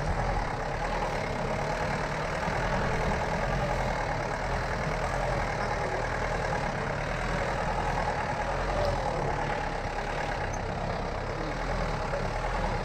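A vehicle's engine running steadily at low speed as it drives along a rough dirt road.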